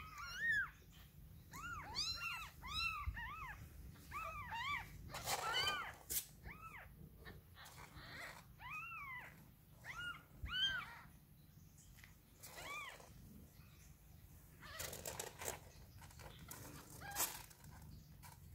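One-day-old Neva Masquerade kittens mewing: a run of short, high, rising-and-falling squeaks, coming thickly at first and thinning out after about thirteen seconds. Brief rustles come in between.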